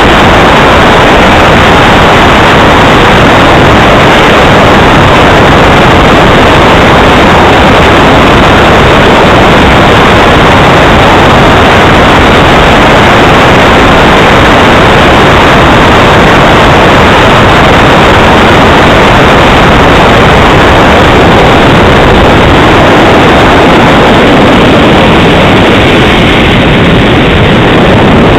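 The jet engine of a radio-controlled model Tornado jet running as a loud, steady rush with no clear whine, overloading the recording.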